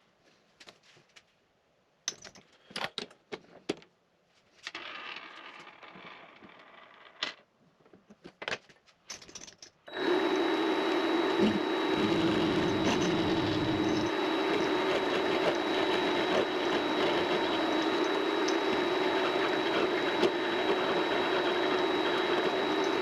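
Scattered clicks and knocks of parts and tools being handled at a mini lathe, then about ten seconds in the Vevor MX400 mini lathe starts and runs steadily, a constant hum with a thin high whine.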